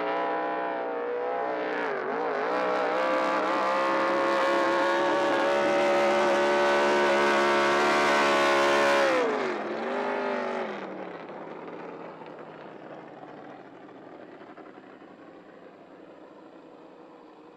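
Six-litre class racing powerboat's engine at high revs on a hot lap. The revs dip and recover in the first two seconds and then hold steady and loud. About nine seconds in they drop sharply, pick up briefly once, and the sound then fades away to a faint rumble.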